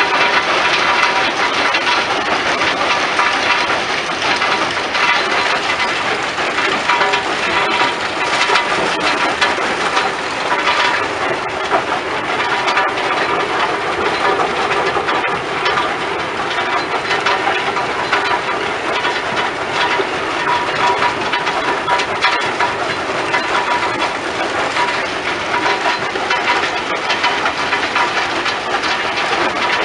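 Rock crushing plant running: a steady mechanical din from the crushers and conveyors, with a constant crackle of stone rattling through, and a thin steady tone underneath.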